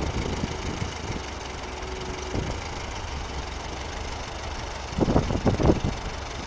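Small vintage farm tractor's engine running slowly under load as it climbs a steep trailer ramp, with a few louder bursts about five seconds in.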